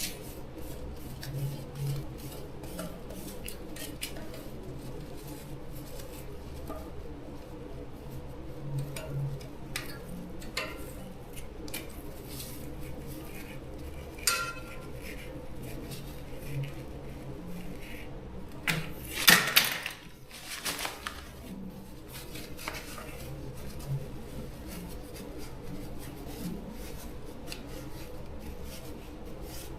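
Hand tools and small metal parts clinking and knocking at irregular moments during repair work on an electric fan, with a louder clatter about nineteen seconds in. A steady low hum runs underneath.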